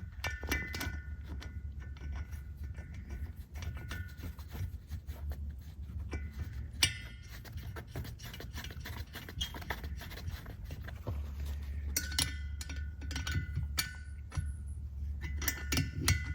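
Metal tools tapping and clinking against a metal engine part in quick irregular runs, each with a short ringing note, over a steady low hum.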